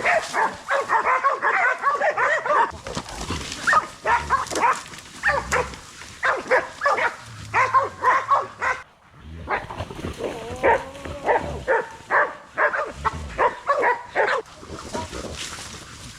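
Pig-hunting dogs barking over and over in short, rapid barks, with a brief lull about nine seconds in.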